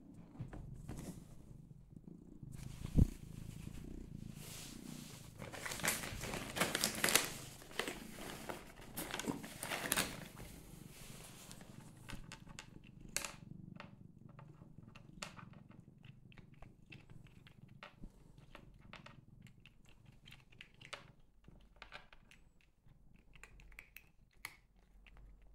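A cat purring steadily, with bursts of crinkling around the middle and then a run of small crunchy clicks as it eats dry cat treats near the end.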